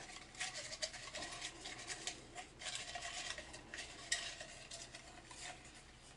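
Folded paper entry slips rattling inside a cup as it is shaken: a faint, irregular run of light rattles that thins out near the end.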